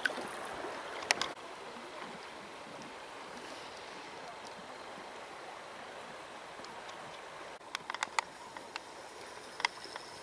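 River water rushing steadily around a drifting boat, with a sharp click about a second in and a few short clicks near the end.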